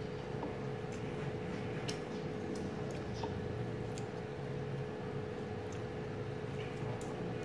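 Scattered faint clicks and crackles of a pomelo segment's membrane being peeled by hand and of chewing, irregular, a few a second, over a steady low background hum.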